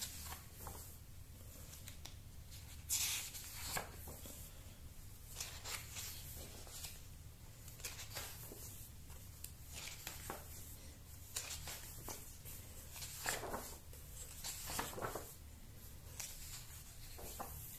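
Pages of a large hardcover comic album being turned one after another: short paper rustles and swishes every second or so, the strongest about three seconds in, over a faint low hum.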